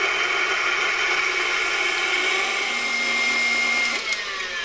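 KitchenAid stand mixer whipping heavy cream with its wire whisk at high speed, a steady motor whir. About four seconds in it is switched off and the motor winds down, its pitch falling.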